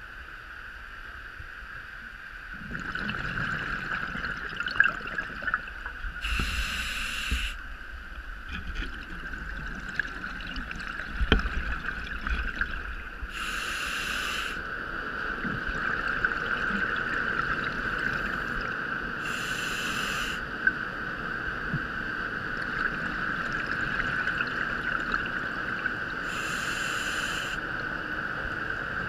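Underwater, a scuba diver breathes through a regulator: a rushing burst of breath and bubbles about every six to seven seconds, four times, over a steady high-pitched hum.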